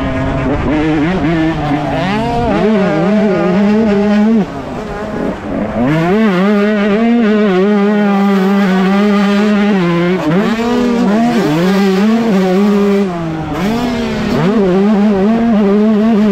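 Yamaha YZ125 two-stroke single-cylinder motocross engine racing hard, heard from on board. It holds steady high revs for several seconds at a time, with the throttle shut off briefly about four and a half seconds in and again near thirteen seconds before it is opened back up.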